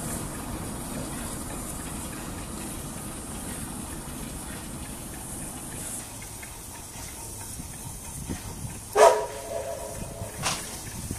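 Class 33 'Crompton' diesel locomotive running away, its sound fading under a steady hiss that drops quieter about six seconds in. About nine seconds in comes a sudden loud clank with a brief ringing tone, and a softer knock follows a second and a half later.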